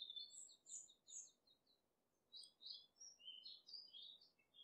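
Faint bird song: two phrases of quick, high chirping notes, the second starting about two and a half seconds in.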